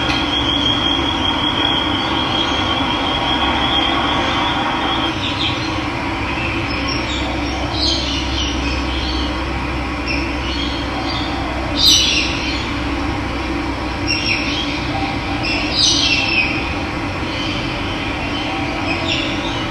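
Steady rushing of running water, with birds calling now and then over it in short chirps, the loudest about twelve seconds in. A thin high trilling note holds for the first five seconds.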